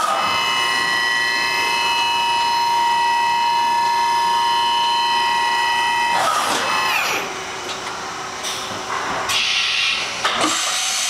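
Makino S33-APC vertical machining center running with a steady high whine of several tones, which winds down with a falling pitch about seven seconds in. Several short bursts of hiss follow near the end.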